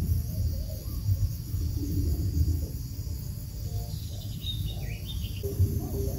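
Background music under a steady high insect drone, with a short burst of high, falling chirps about four seconds in from the quail brooding on its nest.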